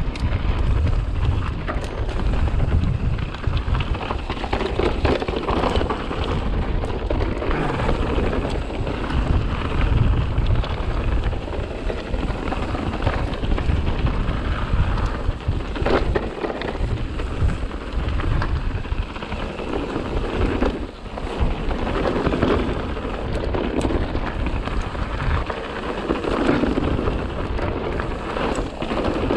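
Mountain bike being ridden along a trail: wind rumbling on the microphone over continuous tyre noise from the trail surface and clatter from the bike, with a sharp knock about sixteen seconds in.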